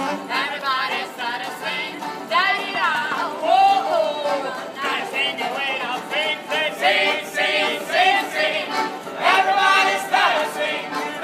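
Street band performing a song: several voices singing together, accompanied by accordion and banjo.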